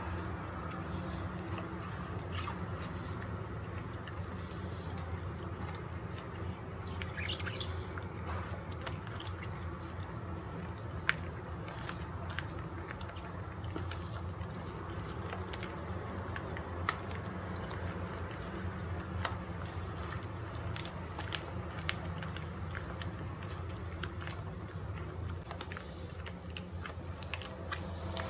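A gloved hand squeezing and kneading sticky ground-chicken and tapioca-starch meatball dough in a plastic bowl: wet squelching and squishing with many small scattered clicks, over a steady low hum.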